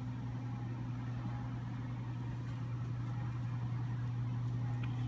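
Steady low hum at one unchanging pitch, with no other events.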